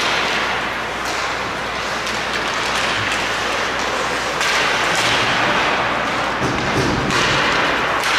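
Ice hockey play in a rink: a steady hiss of skates on the ice, broken by several sharp thuds spread through it.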